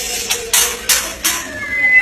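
White-rumped shama (murai batu) singing: a run of four sharp, harsh notes about three a second, then a clear whistled note near the end.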